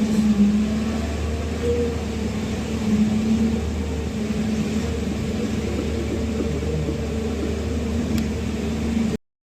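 Excavator's diesel engine running steadily with a low, even hum. A few slight swells in level, and the sound cuts off abruptly near the end.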